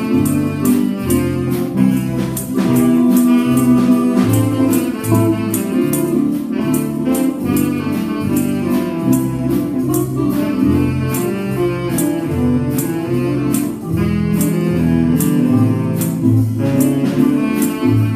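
Small dance band playing a swing-style jazz tune: saxophones carry the melody over electric guitar and low walking notes, with a tambourine marking a steady beat.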